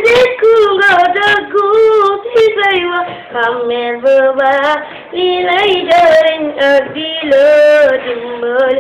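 A young girl singing solo and unaccompanied in a chanting style. Her long melodic phrases have held, wavering notes and short breaths between them.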